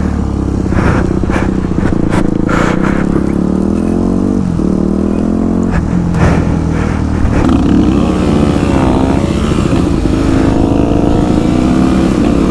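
Motorcycle engine running steadily at low revs, with a few short knocks in the first seconds and a brief wavering of pitch around the middle.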